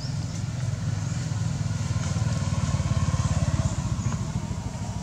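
A motorcycle engine running with a low, rapid throb that swells to its loudest about three seconds in and then eases off.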